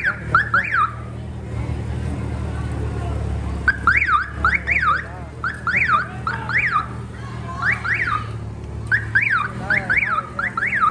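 Electronic alarm siren giving quick up-and-down chirps in clusters of a few at a time with short pauses between, over a steady low rumble.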